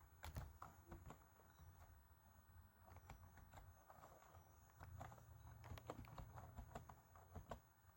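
Faint, irregular keystrokes on a computer keyboard as an email address is typed, over a low steady hum.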